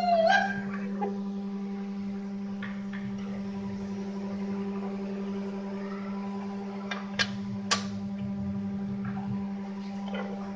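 A steady electrical hum, with a short gliding pitched sound right at the start and two sharp clicks about half a second apart a little past the middle.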